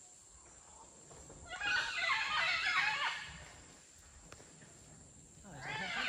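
Red howler monkeys calling from the forest canopy: a burst of calls about a second and a half in that lasts nearly two seconds, then another burst near the end.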